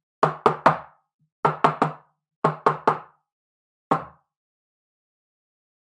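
Ten sharp knocks: three quick groups of three, then a single knock a second later.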